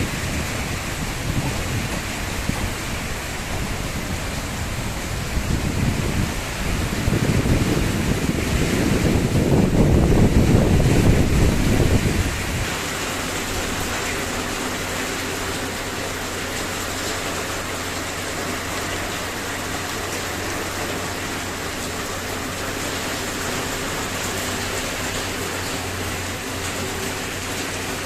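Steady rain falling, an even hiss throughout. For the first twelve seconds or so a low rumble runs under it, growing louder until it cuts off suddenly.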